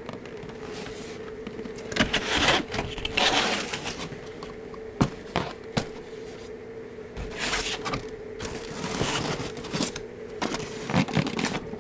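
Cardboard box and styrofoam packaging being handled: irregular scraping and rustling with sharp clicks and knocks, over a steady faint hum.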